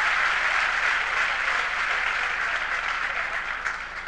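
Crowd applauding, dying away near the end.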